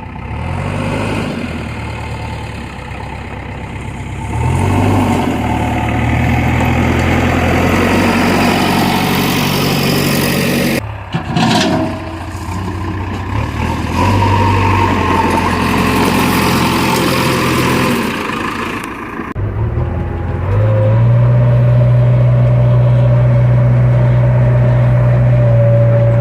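Heavy diesel machinery engine running, rising in level at a few points and settling into a loud, steady drone for the last few seconds.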